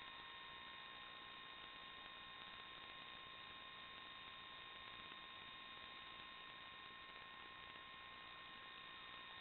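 Near silence: a faint, unchanging electronic hiss with several steady high tones, the empty audio channel of an analog FPV video recorder rather than any sound of the drone itself.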